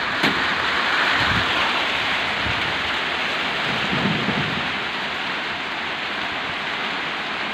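Heavy rain pouring steadily in a strong wind storm. There is a sharp knock just after the start, and low rumbles come about a second in and again around four seconds.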